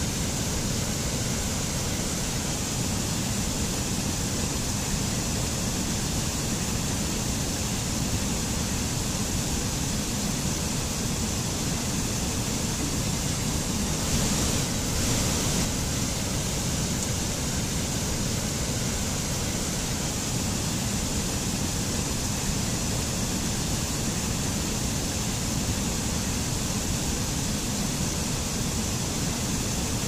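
Small forest waterfall and stream cascading over rocks: a steady rush of water, swelling slightly for a second or two about halfway through.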